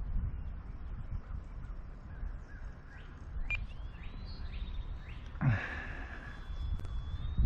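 Wind buffeting the microphone in a steady low rumble, with one brief harsh call, like a crow's caw, about five and a half seconds in.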